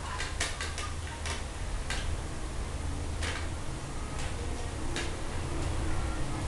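Close-up eating sounds of roast chicken being chewed and picked apart by hand: scattered sharp smacks and clicks, several in quick succession in the first second and then single ones every second or two, over a low steady hum.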